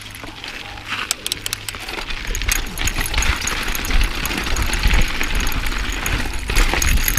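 Mountain bike riding down a rocky dirt trail: tyres rumbling over dirt and rock, with many sharp rattles and clicks from the bike, growing louder over the first few seconds as it picks up speed.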